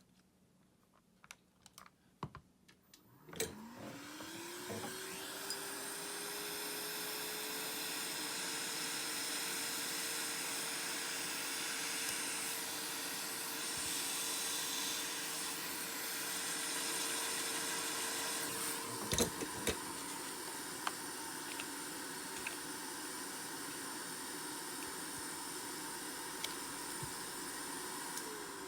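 Light clicks, then a small electric motor spins up with a rising whine and runs steadily with a strong hiss, with a few clicks about two-thirds of the way through. It winds down at the very end.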